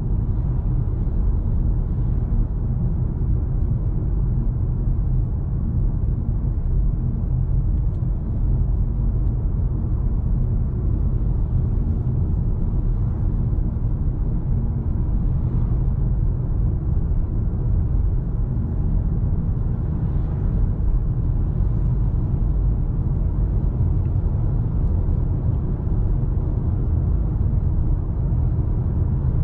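Steady low rumble of road and tyre noise heard inside the cabin of a 2019 Nissan Leaf electric car driving along a road.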